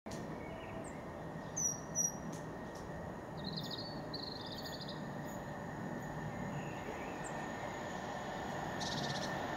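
Songbirds chirping and giving short trills, the loudest chirps about one and a half to two seconds in, over a steady low background rumble that slowly grows louder toward the end as a train approaches in the distance.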